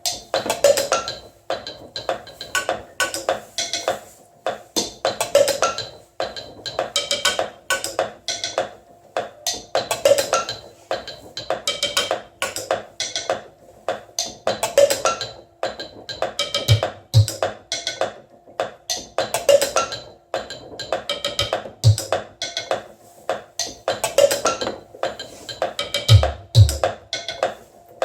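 Mechanical acoustic beat sequencer playing a repeating percussion loop of sharp knocks and clicks, the pattern coming round about every five seconds. A few deep thumps join in during the second half.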